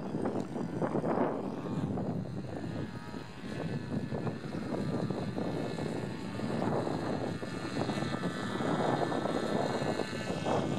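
Radio-controlled model aircraft's propeller droning, swelling and fading a few times.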